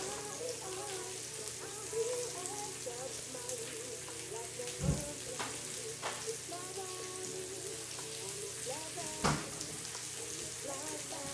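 Food sizzling steadily in a frying pan, with two sharp knocks, about five and nine seconds in.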